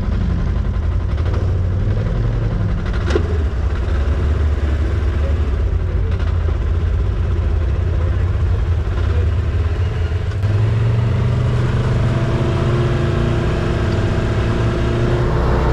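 Polaris side-by-side UTV engine running as the machine drives, a steady low rumble that grows louder about ten seconds in as it picks up.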